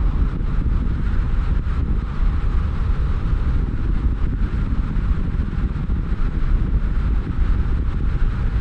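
A car on the move: steady road rumble, heaviest at the low end, with no distinct knocks or changes.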